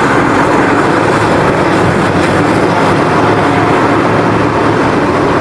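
Large Caterpillar hydraulic excavator working, its diesel engine running steadily: a loud, dense, even rumble and hiss that cuts off suddenly near the end.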